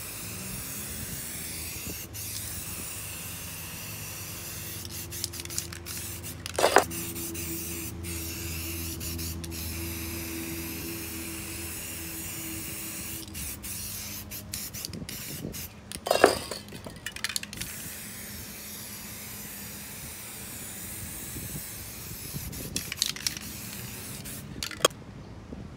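Aerosol spray paint cans hissing in repeated sprays, with short breaks between them. Sharp clacks, the loudest sounds, come about a quarter of the way in, again past halfway, and near the end. The spraying stops just before the end.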